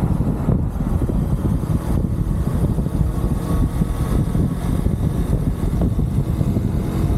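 UM Renegade Commando 125 motorcycle running at a steady pace while riding, with a low engine rumble and steady wind buffeting on the microphone.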